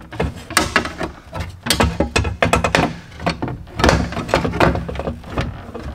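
Irregular clunks, clicks and rattles of a power midgate window regulator, a metal rail with its motor and cable, being handled and worked into place against the midgate's door panel.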